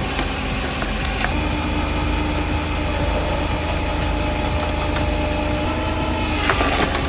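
An engine running steadily at an even speed, with a few sharp knocks about a second in and near the end.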